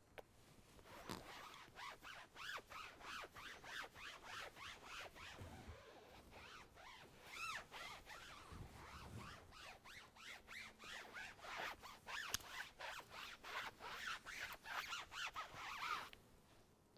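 Foam applicator pad rubbed back and forth over a vinyl convertible top, working in a dressing gel: a quick, even run of scratchy rubbing strokes, about three a second, that stops about a second before the end.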